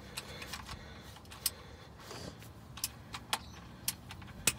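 Irregular light metallic clicks and clinks of a socket ratchet and the engine's oil drain plug as the loosened plug is worked by hand and the ratchet is taken off it, with a sharper click near the end.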